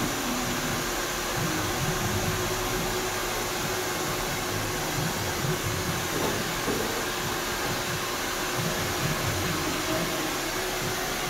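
Handheld hair dryer blowing steadily while hair is blow-dried: a constant rush of air with a faint steady motor hum.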